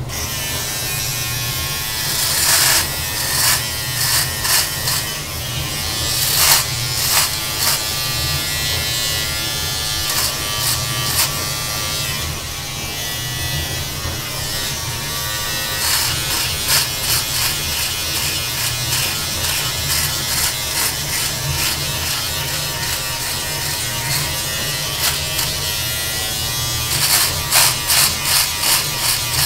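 Electric beard trimmer running with a steady buzz as it cuts beard hair, with louder bursts of crackling strokes a couple of seconds in, around six seconds in and several in quick succession near the end.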